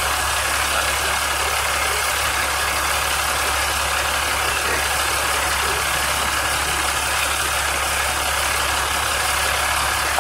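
Fire engine's diesel engine idling steadily.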